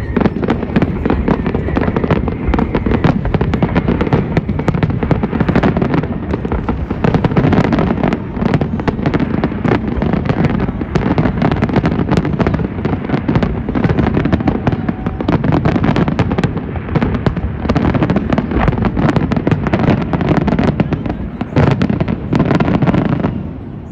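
Dense, continuous barrage of fireworks exploding, countless overlapping cracks and bangs with no letup, dropping away suddenly near the end.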